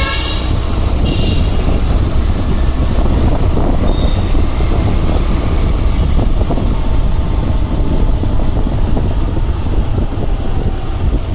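Wind buffeting the phone's microphone while walking, a loud steady low rumble and rush. A vehicle horn toots briefly at the start and again about a second in.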